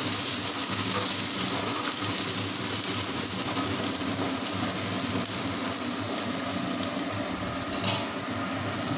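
Chopped onions and tomatoes sizzling in hot oil in an aluminium kadhai as they are stirred with a spatula, a steady hiss that eases off slightly.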